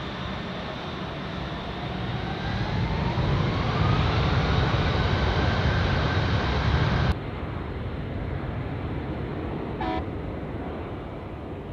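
Jet noise from C-17 Globemaster III turbofan engines: a heavy rumble and roar that grows louder over several seconds, with a whine rising in pitch. About seven seconds in it cuts off suddenly to a quieter, more distant rumble.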